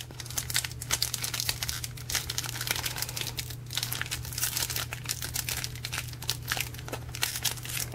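Foil wrapper of a Pokémon Team Rocket booster pack crinkling and crackling in a dense run of small crinkles as fingers pick at its crimped top seal, which is stubborn to open. A low steady hum sits underneath.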